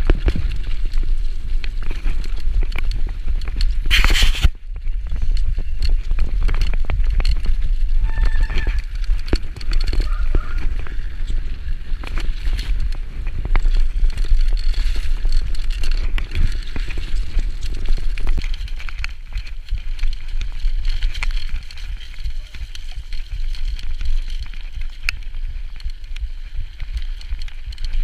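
Mountain bike ridden down a rocky, stony trail: a steady low rumble of wind on the camera microphone, with tyres running over loose stones and the bike rattling in many small clicks. A sharp, loud noise about four seconds in.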